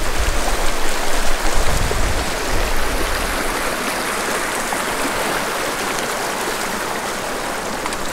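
Shallow rocky creek rushing over boulders in pocket water: a steady hiss of moving water, with a low rumble over the first couple of seconds.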